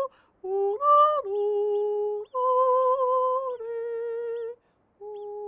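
A woman yodeling unaccompanied: long held notes with a sudden flip up in pitch and back about a second in, short breaks between phrases, and a long steady note starting near the end.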